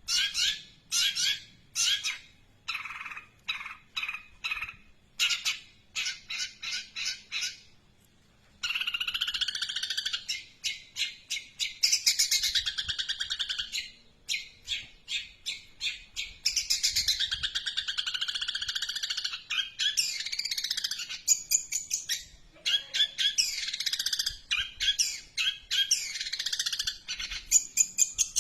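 Long-tailed shrike singing, mimicking a Eurasian tree sparrow. It gives sharp repeated chirps in short runs, then from about nine seconds in breaks into a long, almost unbroken rapid chattering song.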